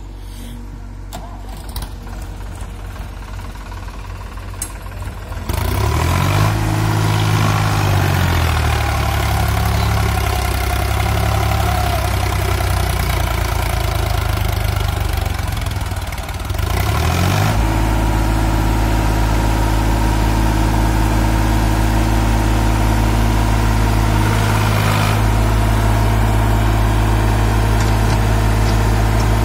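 Sonalika DI 47 RX tractor's diesel engine idling, then revved hard about five seconds in as it hauls a fully loaded trolley through mud, its pitch rising and dipping. From a bit past halfway it runs steadily at high revs under load.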